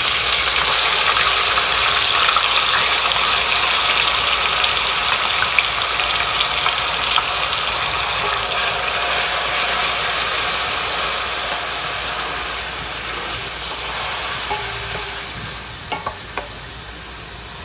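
Mixer-ground onion sizzling in hot oil in a stainless steel kadhai, the hiss dying down gradually as the onion's water cooks off. A few spatula scrapes near the end.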